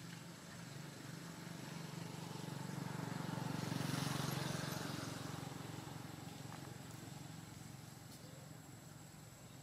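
An engine passing by: a low hum that grows louder to a peak about four seconds in, then fades away.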